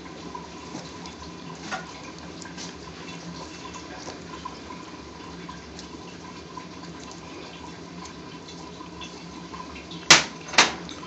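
Grilled garlic cloves crushed by a gloved hand: faint scattered crackles over a steady hiss with a faint steady tone. Near the end, two loud sharp clicks about half a second apart.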